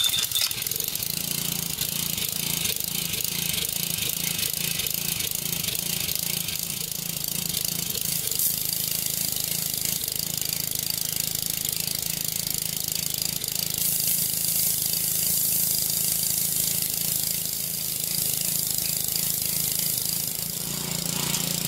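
Honda GC160 single-cylinder engine on a pressure washer running steadily right after a cold start, having not been run in a long time, with a steady high hiss over it.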